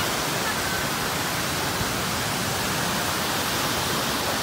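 Water rushing down a rock-slab cascade: a steady, even roar of whitewater.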